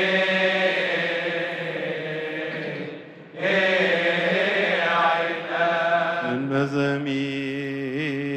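Coptic liturgical chanting: a long, slow, melismatic sung line, broken once by a short breath. About six seconds in, a lower male voice takes over, chanting with a wavering vibrato.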